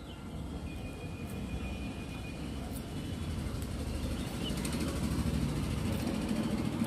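Milk boiling in an aluminium kadai over a gas burner: a steady low bubbling and burner rumble that slowly grows louder.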